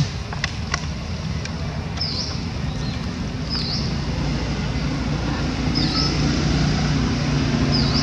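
Low steady engine rumble, growing louder toward the end, with a couple of sharp clicks in the first second. A bird's short dipping chirp repeats four times, about every two seconds.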